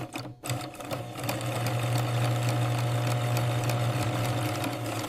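Factory machinery running with a steady hum and fast irregular clicking or rattling. It cuts out briefly right at the start, then comes back louder about a second in.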